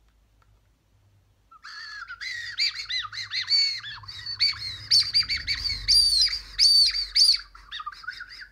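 Whistle Ramune, a ring-shaped candy, blown as a whistle: shrill, warbling chirps in short blasts that rise and fall quickly in pitch, starting about a second and a half in.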